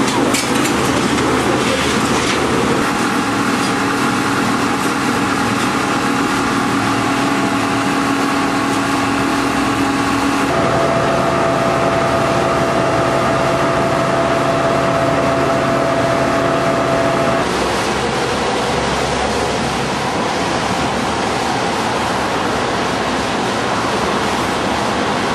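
Engine noise running steadily: a constant din with droning hums that shift in pitch a few seconds in, about ten seconds in and again about seventeen seconds in.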